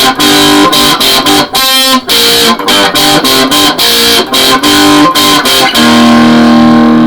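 Stratocaster electric guitar played through a Boss Metal Zone distortion pedal: a heavily distorted riff of short, choppy notes and chords, ending on a held chord that is cut off sharply.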